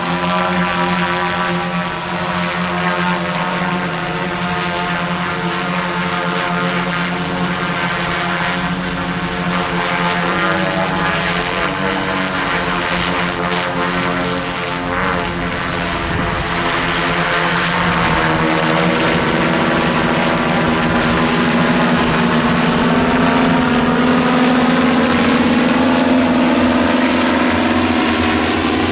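Propellers of the SKYLA single-seat multicopter drone taxi, spun by its electric brushless (BLDC) motors, humming steadily in flight. The hum's tones shift in pitch now and then, and it grows louder about two-thirds of the way through.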